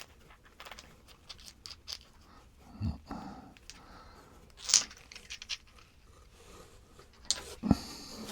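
Hands rummaging in a cardboard box of packed stone points: scattered light rustles of packing material and small clicks of stone, with a soft thump about three seconds in, a sharper rustle-click near the middle and a short cluster of clicks and a thump near the end.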